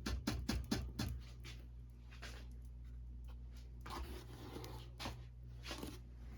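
A quick run of light clicks and taps in the first second and a half, then scattered clicks and short rustles, over a steady low electrical hum: small hand handling on a workbench.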